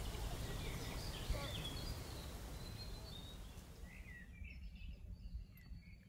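Scattered bird chirps and short gliding calls over a low outdoor rumble, the whole sound fading gradually.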